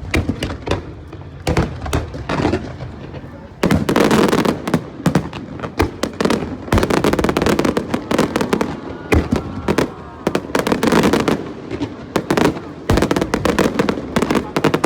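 Aerial fireworks bursting in rapid volleys of bangs and crackles, densest from about four seconds in.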